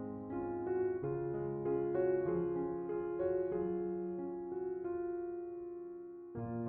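Soft background piano music, gentle notes played over sustained chords; it fades briefly near the end, then picks up again.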